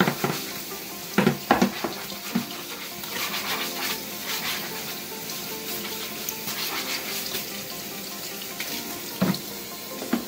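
Kitchen faucet running into a sink while a stiff plastic tray is rinsed and turned under the stream, with a few knocks and clatters from handling it, about a second in and near the end.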